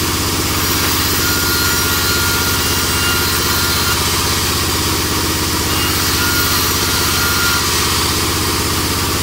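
Large vertical band saw running steadily, a constant mechanical drone from its drive. A faint high whine comes and goes twice.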